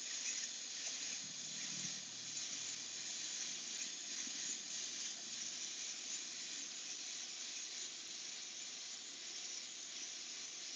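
Steady hiss of compressed air and paint spraying from an Iwata Eclipse bottle-fed airbrush as it lays down shading, stopping suddenly at the very end.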